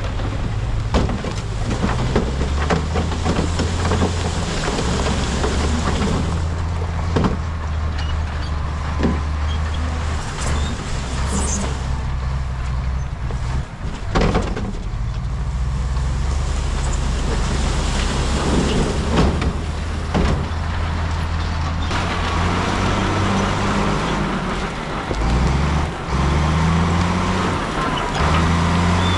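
Heavy diesel construction machinery running, with a low engine drone whose pitch shifts several times, and scattered knocks and clatter over it.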